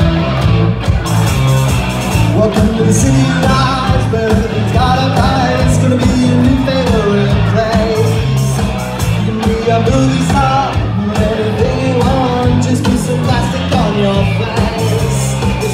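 Live rock band playing loud: electric guitar, bass guitar and drums, with a voice singing over them.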